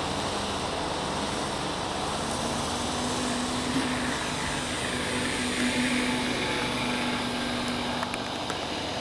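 Radio-controlled model warbird's motor and propeller running, with a steady hum that sets in about two seconds in and holds until near the end.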